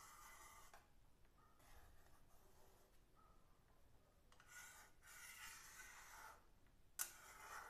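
Faint scraping of a metal spatula stirring milky vermicelli kheer in a metal kadhai, in a few short strokes, with one sharp click about seven seconds in.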